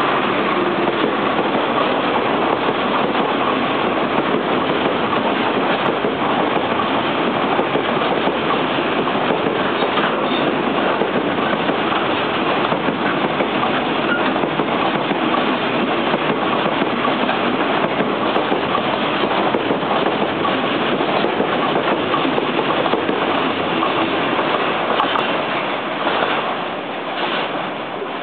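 DD51-hauled freight train of container wagons passing close by: a loud, steady noise of wheels running on the rails, dropping away near the end as the last wagons go past.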